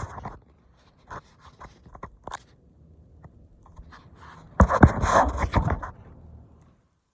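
A high heel crushing something brittle: scattered small crackles, then a loud crunching, crackling burst lasting over a second about two-thirds of the way in.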